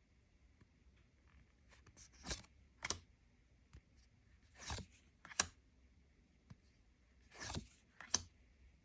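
Trading cards being handled by hand: three times a soft swish of a card sliding, followed about half a second later by a sharp tap or click as it is set down.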